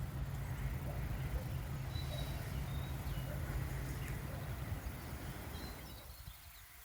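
Small birds chirping a few times over steady outdoor rumble and hiss, which fades about a second before the end.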